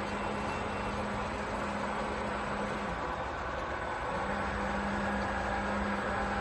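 H. Ernault Somua Z3C milling machine running under power, a steady mechanical hum and whir. One low humming tone drops out about three seconds in and comes back about a second later.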